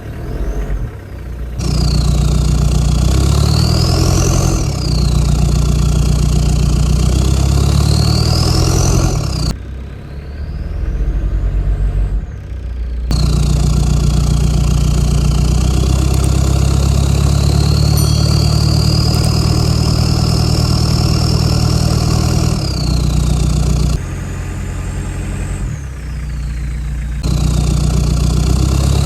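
Mitsubishi Delica's 4M40 turbodiesel being revved again and again, its turbo whistle rising in pitch as the revs climb and sliding back down as they drop. There are about half a dozen rises, one held in a long slow climb through the middle, between short stretches of quieter running.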